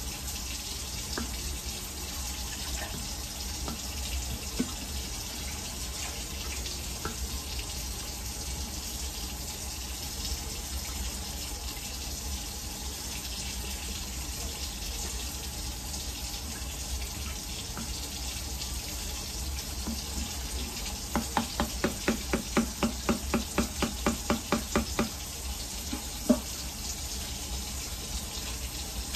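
Steady watery hiss in a kitchen. For a few seconds near the end comes a quick run of rattling taps, about four a second.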